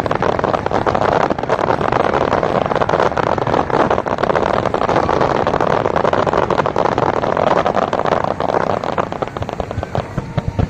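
Fireworks crackling overhead: a dense, continuous crackle that fades somewhat near the end.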